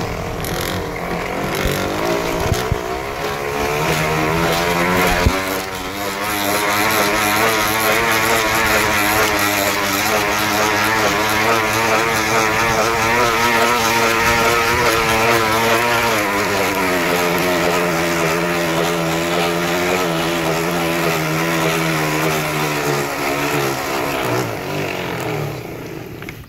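Bicycle wheel spokes flapping against a homemade noisemaker, making a motorbike-like buzz whose pitch follows riding speed. It climbs a few seconds in, holds steady, drops back about two-thirds of the way through, and dies away near the end as the bike slows.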